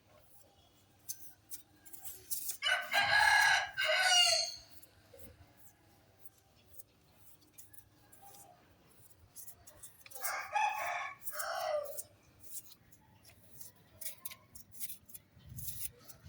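A rooster crowing twice: a long crow about three seconds in and a shorter, two-part crow around ten seconds in. Faint scattered clicks run in between.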